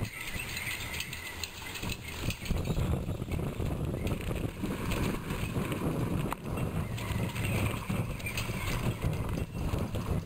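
Wind rumbling on the microphone, with scattered light clicks and rattles.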